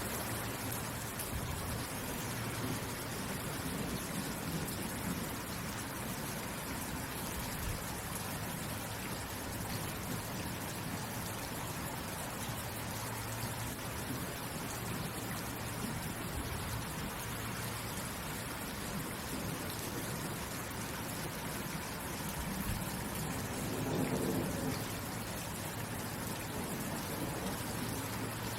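Steady rain falling, an even hiss. About 24 seconds in, a brief low rumble swells and fades.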